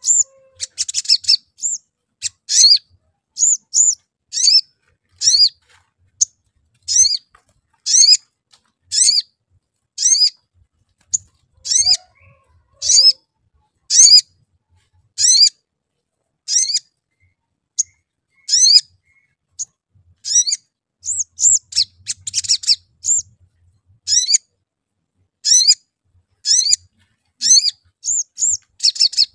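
Male olive-backed sunbird calling: a sharp, high 'cuit' chirp repeated about once a second. Quicker chattering runs of notes come shortly after the start and again about two-thirds of the way through.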